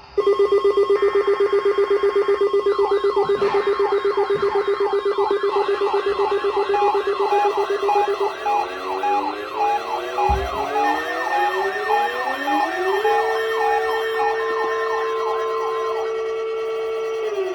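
Several emergency alert alarms sounding together for a NOAA Weather Radio weekly test: a fast-pulsing steady tone, overlapping warbling siren-like tones, rising sweeps, and later a held tone, all cutting off together near the end.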